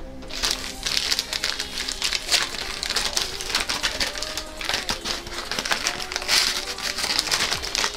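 Paper snack bag crinkling and rustling as it is handled close to the microphone, with quick crackles throughout, over faint background music.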